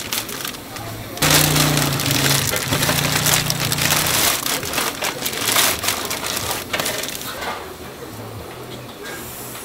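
Thin plastic bag liner crinkling and rustling as it is untied and pulled open over a pot of hotteok dough. It starts sharply about a second in and is loudest for about three seconds, then dies down. A low hum sounds under it during the loudest part.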